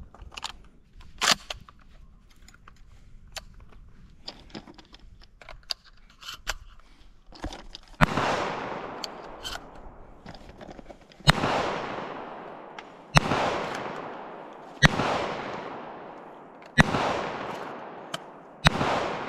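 A 12-gauge Benelli SuperNova pump shotgun is handled for several seconds with small clicks and clacks. Then it fires six shots, one every two seconds or so, each with a long echoing tail.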